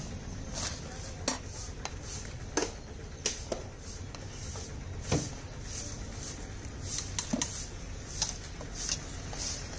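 Metal cooking utensils and pots clinking and knocking at irregular intervals, about ten sharp strikes, over a steady low rumble.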